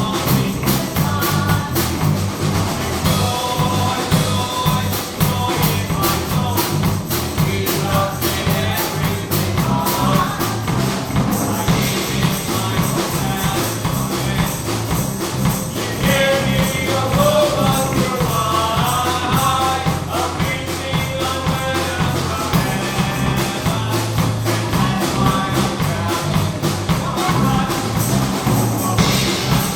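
Church praise-band music with a steady drum-kit beat, tambourine and bass under a melody line.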